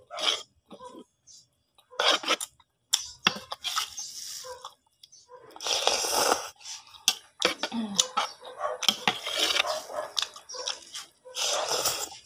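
A person slurping noodles off a fork in several noisy sucking bursts up to about a second long, with short clicks of the fork on the plate in between.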